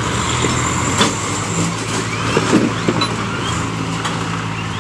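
Tractor diesel engines of a Kubota MU5501 and a Swaraj 744 running hard under heavy load, a steady hum, as the chained tractors pull against each other in a tug-of-war. A few short knocks come through about a second in and again around the middle.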